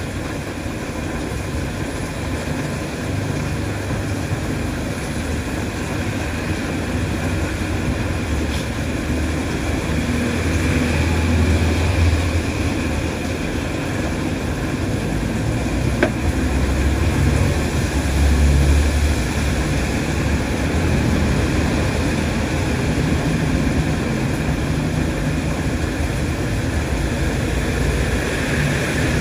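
Heavy rain falling on a paved street, a steady even hiss, with a low rumble that swells twice in the middle.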